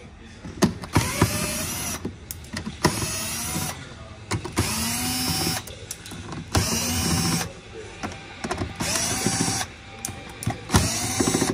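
Cordless drill-driver spinning out screws in six short bursts about two seconds apart, each about a second long, the motor whine rising in pitch as each starts.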